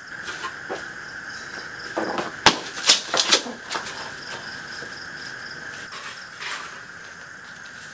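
Steady chirring of crickets or other night insects, with a short cluster of sharp clicks and crackles about two to three and a half seconds in.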